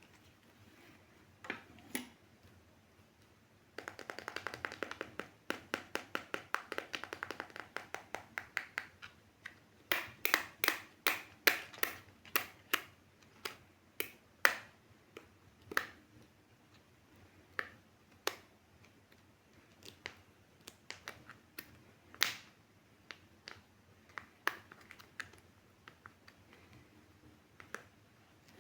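Hands handling small surprise-egg toys and their packaging: a run of quick clicks and rattles about four to nine seconds in, then sharper separate clicks and taps that thin out toward the end.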